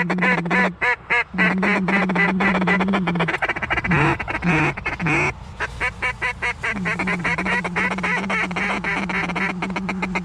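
Mallards quacking and chattering in a dense, rapid run of calls. A steady low hum underneath breaks off twice, and a few drawn-out, falling quacks come near the middle.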